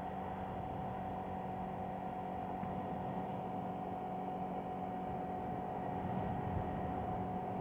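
Small carbureted scooter engine with belt drive running steadily under light throttle at about 40 km/h, during its break-in period, with a thin steady whine over even road and wind noise.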